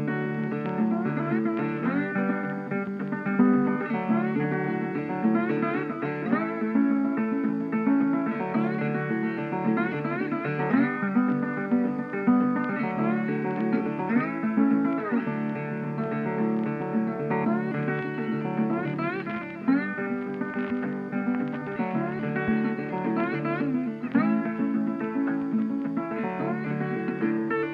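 Background music led by guitar, with plucked notes and some sliding, bending notes.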